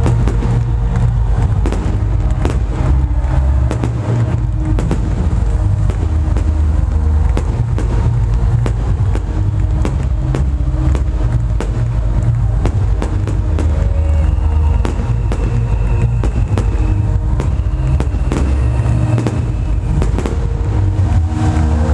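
Fireworks cracking and popping in many sharp bursts over loud, bass-heavy electronic dance music from a stadium sound system.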